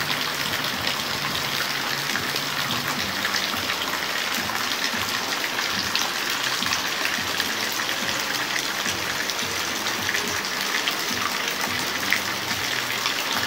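Steady rain falling: an even hiss with many separate drop hits.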